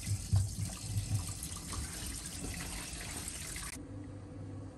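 Hot water tap running in a full stream into a stainless steel sink. The running water cuts off suddenly near the end, leaving a low steady hum.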